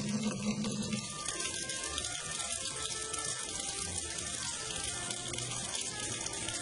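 Steady hiss of running water, like a tap running.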